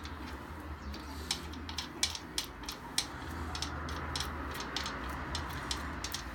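Irregular light metallic clicks and ticks, about two or three a second, as bolts are fitted by hand into the bottom end of a BMW M44 four-cylinder engine. A steady low hum runs underneath.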